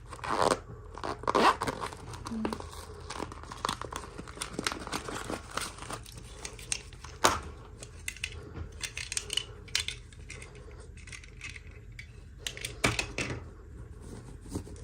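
Toy packaging being unwrapped, crinkling and tearing, with many small irregular clicks and taps.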